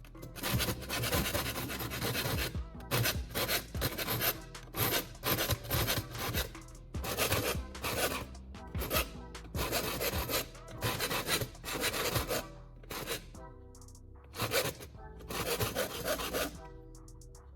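A hand file rasping across the teeth of a folding saw blade in quick repeated strokes, about two a second, sharpening the dull teeth; the strokes thin out and stop near the end.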